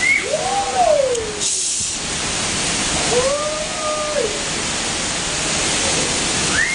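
Hurricane wind blowing hard as a steady, loud rush, with three rising-and-falling howls, each about a second long: one near the start, one around the middle and one at the very end.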